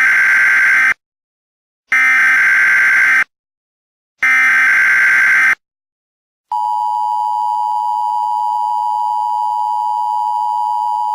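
Emergency Alert System tones: three roughly one-second bursts of the digital SAME header, with about a second of silence after each, then the steady two-tone EAS attention signal beginning about six and a half seconds in and holding.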